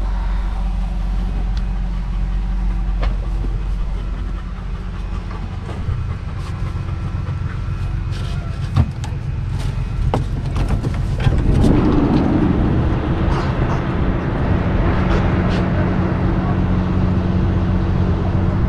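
A vehicle's engine running steadily, with scattered clicks and knocks over it; the sound grows busier and a little louder about halfway through.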